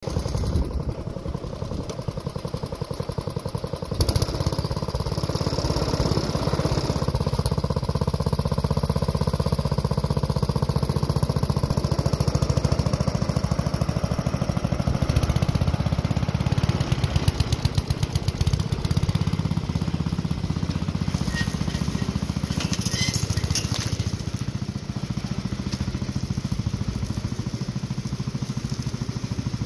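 1968 Wheel Horse lawn tractor's engine running steadily as the tractor mows grass; it gets louder about four seconds in and eases a little near the end as the tractor drives away.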